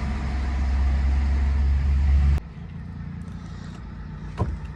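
Car cabin noise while driving: a steady road and engine rumble with hiss that cuts off abruptly about two and a half seconds in. A much quieter steady engine hum follows, with a couple of faint clicks near the end.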